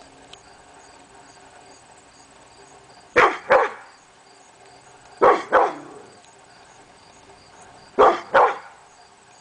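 Blue brindle pit bull barking in pairs: two quick barks about three seconds in, two more about two seconds later, and a last pair near the end.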